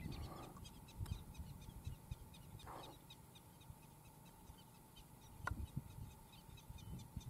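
Quiet outdoor ambience: low wind rumble on the microphone with faint bird chirps and a short call, and a single soft click about five and a half seconds in.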